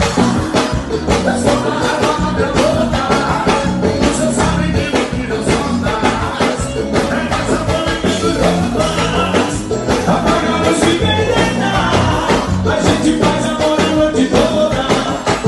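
Forró band music with singing over a steady, busy dance beat of percussion.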